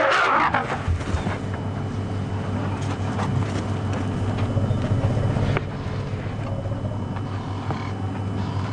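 Safari vehicle's engine idling with a steady low hum, under a light hiss of open-air noise; a louder noisy sound fades out in the first half second.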